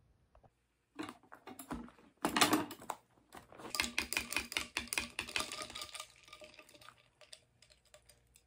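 Ice rattling and clicking in a plastic cup of ade as a straw stirs it, a fast dense clatter with a louder crackling burst about two and a half seconds in, thinning out near the end.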